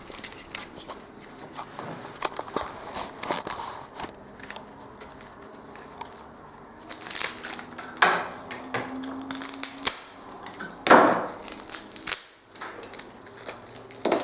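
Irregular knocks, clicks and crackling from the exposed, rotten wooden floorboards being handled and stepped on, with a few louder knocks and a brief steady creak-like tone about two-thirds in.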